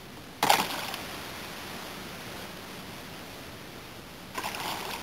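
Two sudden splashes of a hooked fish thrashing at the water's surface, a loud one about half a second in and a shorter one near the end, over a steady background hiss.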